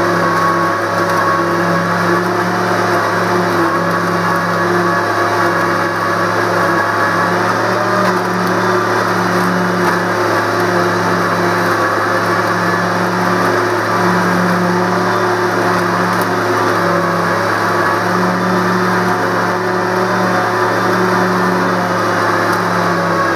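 New Holland Boomer 50 compact tractor's diesel engine running steadily at working speed, driving a PTO-powered three-blade Sidetrax SM150 rotary cutter that mulches tall grass and brush.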